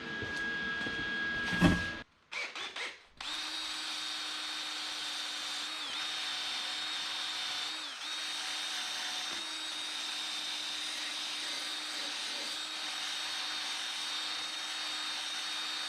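Power tool spinning a wire wheel to clean up fresh tack welds, running with a steady whine from about three seconds in, its pitch dipping briefly a few times as the wheel is loaded.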